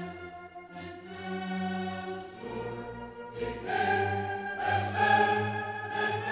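Orchestral music with a choir singing long held chords, swelling louder about halfway through.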